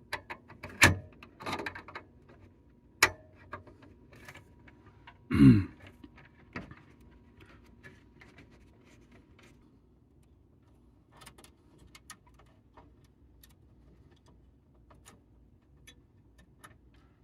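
Small clicks and taps of a screwdriver working a terminal screw and a wire being pulled off an alarm panel's zone terminal strip, a few sharp clicks in the first three seconds and faint ticks later. A brief low sound about five seconds in is the loudest thing.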